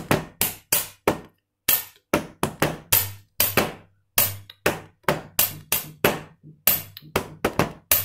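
Hand-and-pen tabletop percussion: open-palm slaps on a glass table top for the low beats alternate with a plastic ballpoint pen tapping for the high beats. They run as a steady rhythm of about three to four strikes a second, with a brief pause near the start and some quick doubled and tripled strokes.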